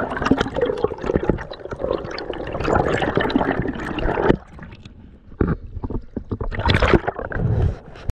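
Water sloshing and bubbling around a spearfisher's camera in the sea, full of crackling clicks. About four seconds in the noise drops sharply, leaving a quieter bed broken by a few loud gurgling bursts.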